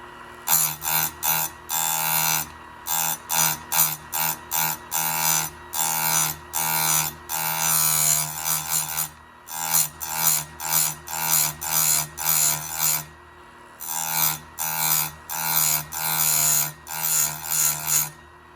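Harbor Freight electric chainsaw chain grinder's spinning wheel dabbed against a steel cutter tooth in repeated short grinding passes, about one a second, over a steady motor hum. There are a couple of brief pauses.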